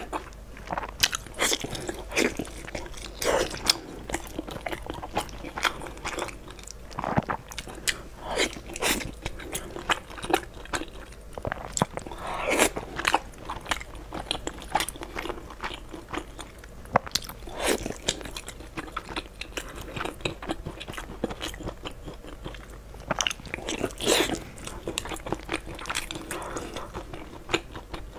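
Close-up mouth sounds of a person eating braised fatty pork: chewing and biting, with irregular smacks and clicks throughout.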